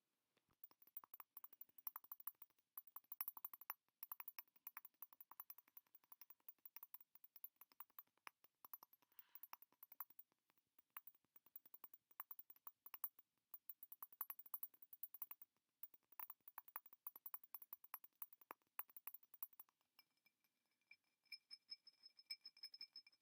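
Fast, dense tapping on objects: rapid runs of light clicks with short pauses between them. In the last few seconds the tapped object gives off a faint steady ringing tone.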